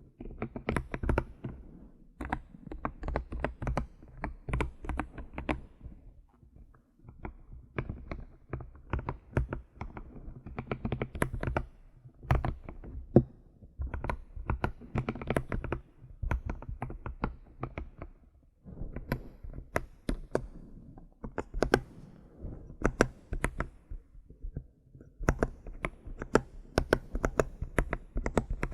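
Computer keyboard typing: quick runs of key clicks with a low thud under the strokes, broken by short pauses.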